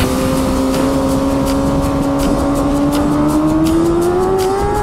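Racing superbike engine heard from an onboard camera, pulling in one gear with its pitch rising steadily as the bike accelerates.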